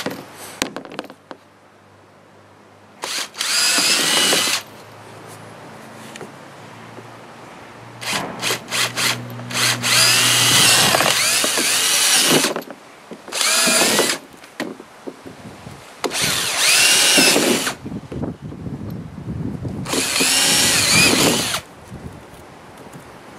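Cordless drill running in about five short bursts, its motor speed rising and falling, as it bores into the rim of a plastic feeder trough. The longest run comes near the middle and starts with a few stuttering trigger pulls.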